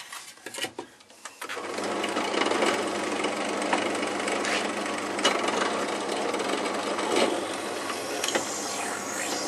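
Bench pillar drill press switched on about a second and a half in, its motor then running steadily.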